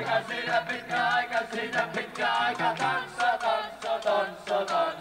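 Live humppa band playing: keyboards, bass guitar, electric guitar and drums in a fast steady beat, with voices singing along.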